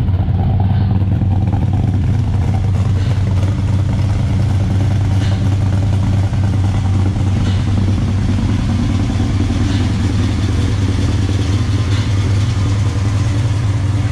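Motor vehicle engine running at a steady speed, an unbroken low drone.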